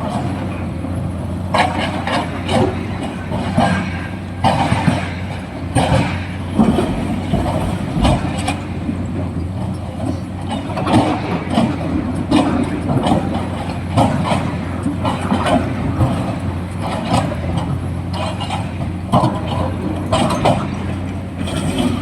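Heavy diesel excavator engine running steadily, with frequent knocks and clatter from the digging and loading work.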